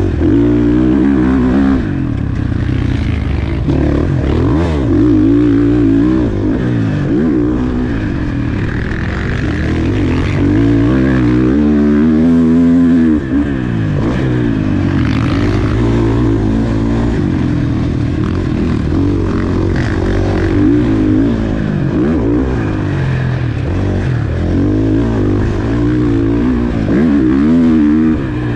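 KTM four-stroke single-cylinder motocross bike engine under hard riding, revving up and dropping back again and again as the rider works the throttle and shifts. About halfway through the throttle is briefly chopped.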